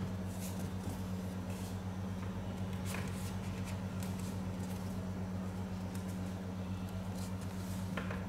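Steady low hum, unchanging throughout, with two faint ticks, one about three seconds in and one near the end.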